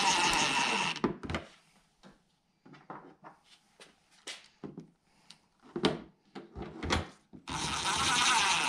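Craftsman cordless impact driver hammering a screw into a plastic fender flare, stopping about a second in. Light clicks and knocks of handling the screw, bit and panel follow, and the impact driver starts again near the end.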